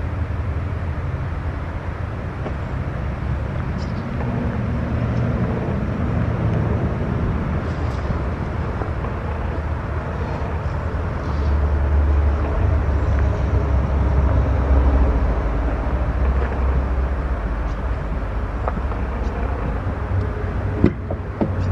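Heavy-duty Chevrolet Silverado 3500HD pickup's engine idling, a steady low rumble that grows louder for several seconds in the middle. A sharp click near the end.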